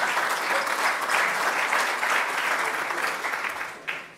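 Audience applauding; the clapping thins out and dies away near the end.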